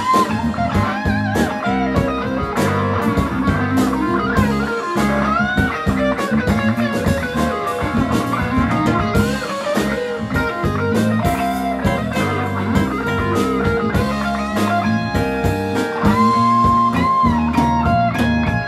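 Live band playing blues-rock on electric guitars and drum kit. Over it runs a lead line of bent, gliding notes, with one long held note near the end.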